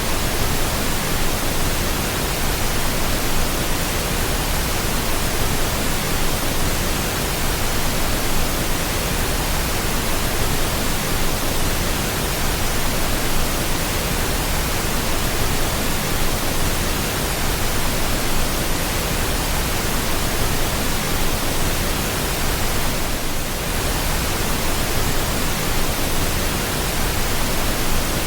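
Steady, continuous pink noise: an even hiss spread across low and high pitches, with a slight brief dip about 23 seconds in.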